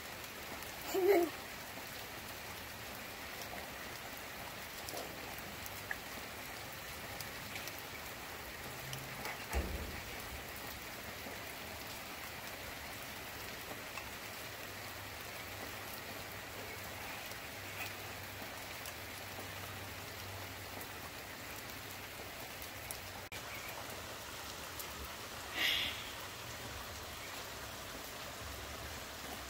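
Steady rain falling, an even hiss. A few brief louder sounds break through it, the loudest near the end.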